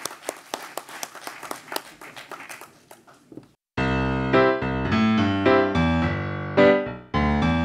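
Audience applause, thinning out and fading, then a cut about three and a half seconds in to loud piano music.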